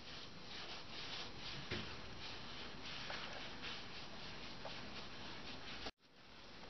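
Shop rag rubbing over a motorcycle's painted plastic fairing in quick back-and-forth strokes, about three a second, buffing off decal adhesive residue with WD-40. The sound cuts out abruptly about six seconds in, then resumes.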